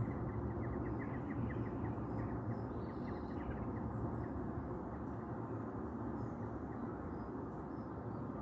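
Steady low outdoor background rumble, with a quick run of short, high bird chirps during the first three seconds.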